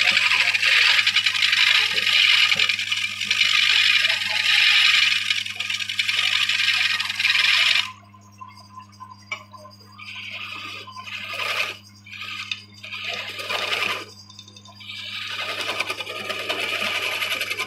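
A woodworking machine cutting a piece of wood: a steady, noisy cut for about eight seconds that stops abruptly, then three shorter cuts of a second or two each, over a constant low hum.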